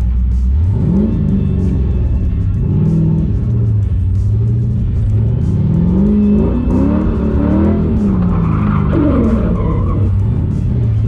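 LS V8 in a Miata NB drift car revving up and down repeatedly as it is driven through a drift course, heard from inside the cabin, with tyre squeal in the second half.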